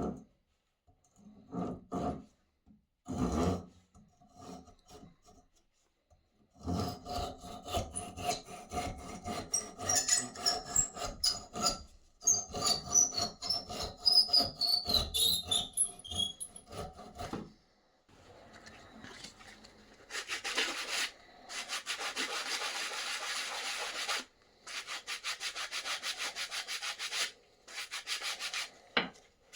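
Repeated rubbing and scraping strokes of hand work on the axe, after a few scattered knocks in the first seconds. A squeal falls in pitch midway through. Near the end the strokes turn to a hissy rubbing in long stretches with short breaks.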